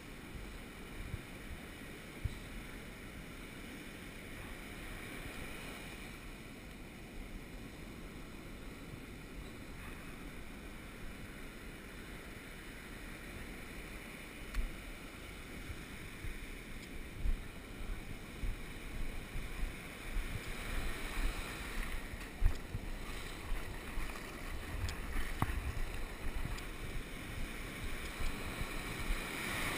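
Wind buffeting a body-worn action camera's microphone over the steady wash of small breaking surf. In the second half it grows louder, with frequent low thumps.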